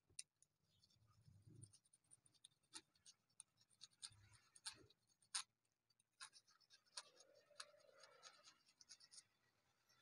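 Faint, scattered scratching and light taps of hands working gold paint into the engraved lettering of a granite headstone.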